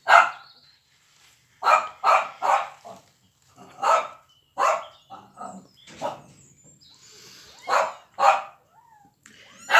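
A run of short, sharp animal calls: about a dozen separate cries in irregular bursts, some in quick groups of two to four.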